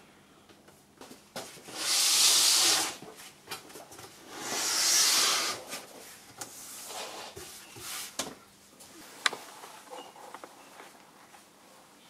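Two long hissing rubbing strokes on a Tasmanian oak board, about a second each, the second a couple of seconds after the first. Then light handling knocks and one sharp click.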